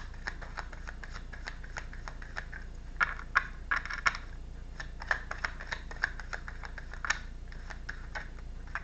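Tarot cards being shuffled and handled: irregular light clicks and snaps of card against card, with a denser flurry about three to four seconds in.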